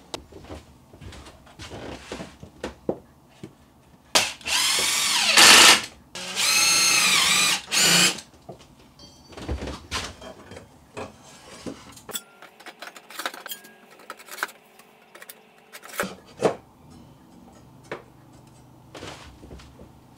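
A power drill runs in two bursts of about one and a half seconds each, its pitch rising and falling as the motor speeds up and slows down. Around it are scattered clicks and knocks of handling.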